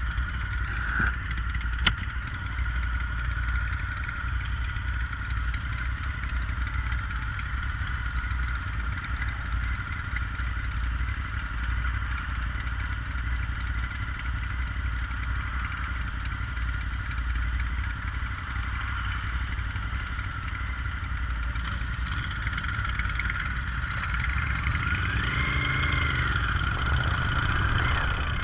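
Motorcycle engines idling while stopped, the Suzuki SV1000S's V-twin closest, with a steady high whine underneath. About four seconds from the end, engines rev and rise in pitch as the bikes pull away.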